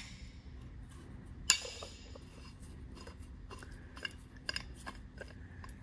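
Worn Sunbeam Alpine water pump turned by hand, its impeller clinking against the housing: one sharp metallic clink about a second and a half in and a few lighter clicks about four seconds in. The pump binds as it turns because the impeller is touching the case.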